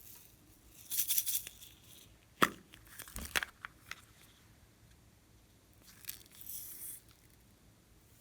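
Crinkling, tearing noises about a second in and again near the end, with one loud sharp click and a few smaller clicks in between, from objects being handled while making slime.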